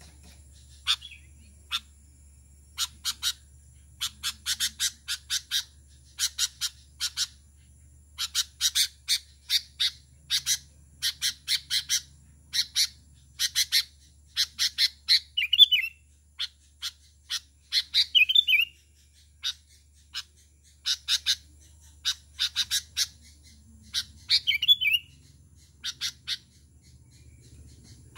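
Sooty-headed bulbul (kutilang) calling over and over: runs of short, sharp chirps with a few falling, warbled phrases in between. This is the bird's calling to draw in other bulbuls.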